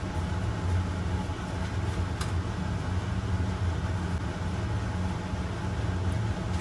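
A steady low machine hum, with one faint click about two seconds in.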